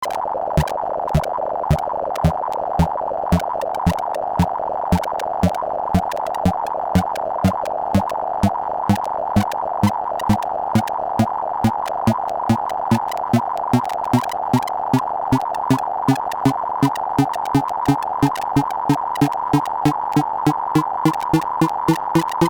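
Computer-generated sorting-algorithm sonification: a dense stream of short sine-tone blips whose pitch follows the data values, each comparison or write a quick hit, over a regular low pulse about twice a second. The pulse climbs steadily in pitch and quickens slightly toward the end.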